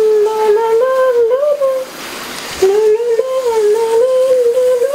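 A person humming a tune in a fairly high voice: two long, smoothly wavering phrases with a short pause about two seconds in.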